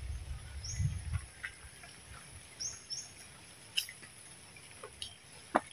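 Quiet outdoor ambience: a bird repeats a short, high chirp that rises in pitch, every second or two and sometimes twice in quick succession, over a faint steady high hum. There are soft low thumps in the first second and a sharp tap near the end.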